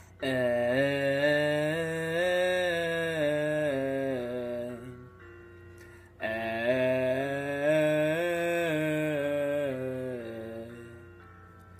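A man's voice singing a sustained open "ah" with the tongue stuck out, a chest-voice vocal exercise. There are two long phrases, each stepping up a short scale and back down, with a short pause between them.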